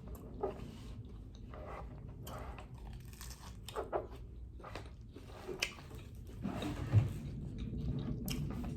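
Close-up chewing with irregular crunches of hard, crisp taco shells being bitten and chewed.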